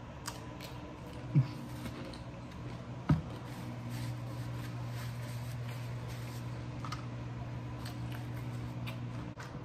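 Soft small handling noises with two short thumps, about a second and a half and three seconds in, over a steady low hum.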